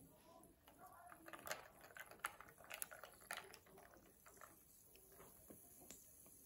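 Faint fizzing and crackling of tonic water over ice in a glass of gin and tonic, with a cluster of small sharp clicks of ice between about one and four seconds in as a finger pushes the ice and lime down.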